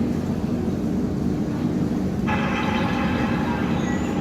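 Samsung Galaxy smartphone loudspeaker playing a demo soundtrack of a steady, rumbling vehicle-like noise. A little past two seconds in, the sound abruptly turns brighter and fuller in the upper range.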